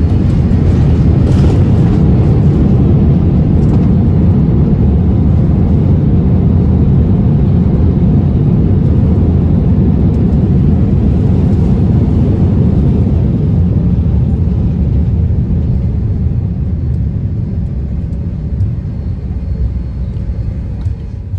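Boeing 787-9 cabin noise during the landing roll: a steady, loud low rumble from the wheels and engines that gradually eases as the aircraft slows.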